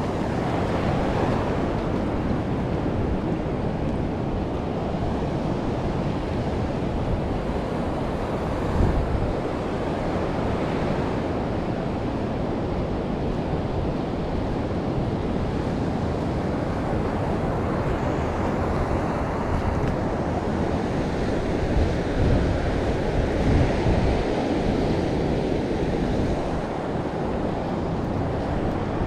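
Steady outdoor rushing noise, heaviest in the low end, with louder rumbling gusts about nine seconds in and again a little past twenty seconds.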